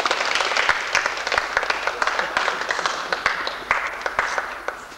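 Applause from a small crowd of onlookers, a dense patter of hand claps that dies away near the end.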